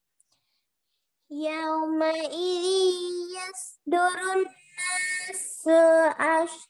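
A student's high voice chanting a Quranic verse in Arabic in the melodic, drawn-out tajweed style, with long held notes. It starts a little over a second in and comes in three or four phrases with short breaks.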